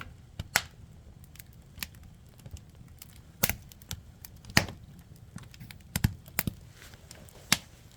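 Firewood burning and crackling, with sharp snaps at irregular intervals, a few of them loud.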